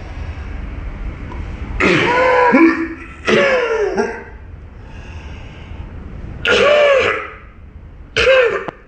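A person coughing four times, each cough voiced and drawn out, with pauses of one to three seconds between them.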